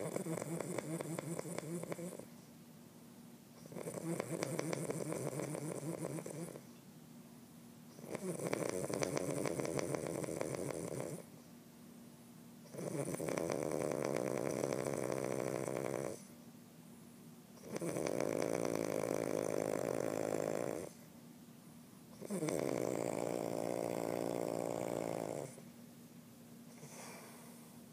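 A sleeping man snoring: six long, fluttering snores of about three seconds each, coming every four to five seconds with quieter breaths between, and a faint short one near the end.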